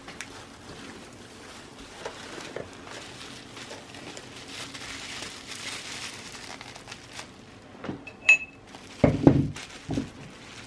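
Packaging rustling as items are handled and lifted out of a box, with a short clink about eight seconds in and a few knocks near the end.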